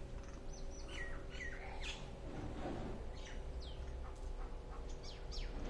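Birds chirping: scattered short high chirps, some sliding down in pitch, over a faint steady hum.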